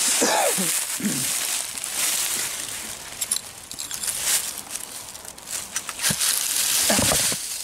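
Dry fallen leaves crunching and rustling close to the microphone as hands sift through a leaf-covered pile of broken bottle glass and debris.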